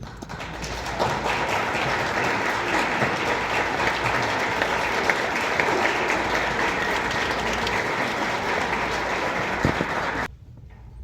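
A crowd applauding, a dense patter of many hands clapping that builds over the first second, holds steady, and cuts off suddenly near the end.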